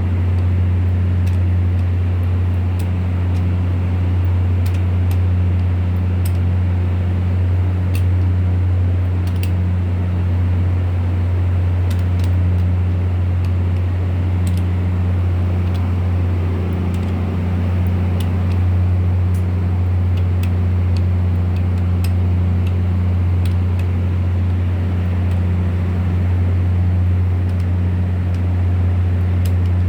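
Volvo TWD1463GE diesel generator engine running steadily with a deep even hum and faint irregular ticks, an engine that the owner reports as misfiring.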